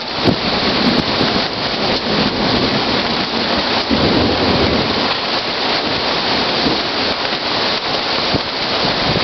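Rain falling steadily, with a rumble of thunder about four seconds in.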